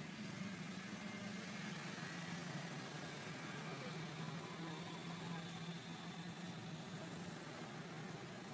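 An engine running steadily at idle: a low, even hum over a haze of outdoor background noise.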